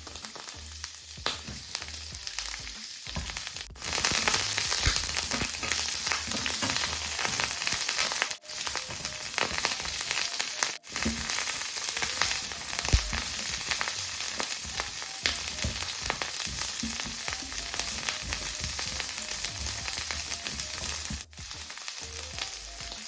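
Asparagus and ginger frying in hot coconut oil in a pan: a steady sizzle that gets much louder about four seconds in and cuts out briefly a few times.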